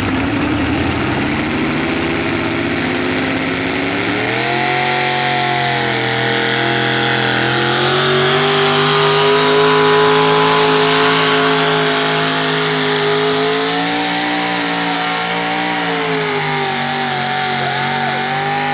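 A vintage Ford pickup's engine runs at high revs under full load as it drags a truck-pulling sled. Its pitch climbs about four seconds in, then holds high as the truck passes close by.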